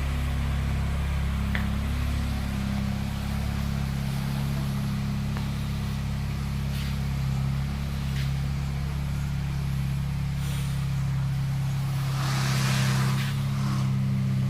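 Honda City GM6's 1.5-litre four-cylinder engine idling steadily through an HKS aftermarket exhaust muffler, a low even hum. A brief hiss comes about twelve seconds in.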